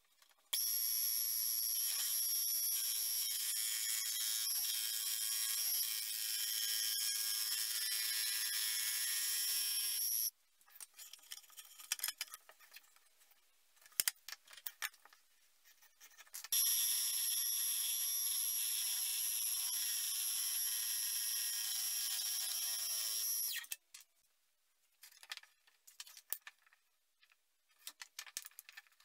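Small Dremel scroll saw running with a steady high-pitched whine while cutting a thin wood panel, in two runs of roughly ten and seven seconds. Between and after the runs there are only faint scrapes and light knocks of hand work on the panel.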